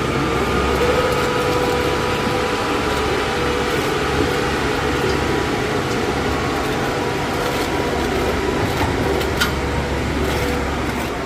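A steady mechanical drone, like an engine or motor running, with a constant whine over a low rumble. A few short clicks or taps come near the end.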